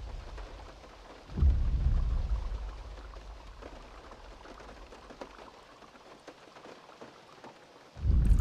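Two deep booming footfalls of a Tyrannosaurus rex over steady rain. The first comes about a second and a half in and dies away over a few seconds; the second starts near the end.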